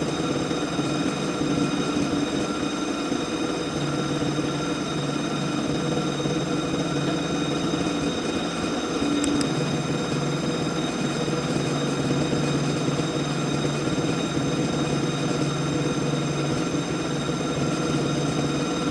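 CNC vertical milling machine cutting metal on a finishing pass: a steady machine noise with several held whining tones that do not change.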